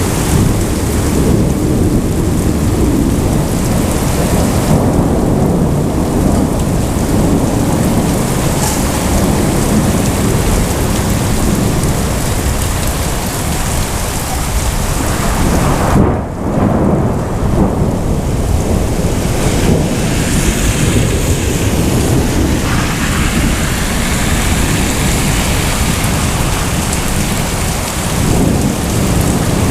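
Heavy rain pouring steadily during a thunderstorm, with thunder rumbling low underneath.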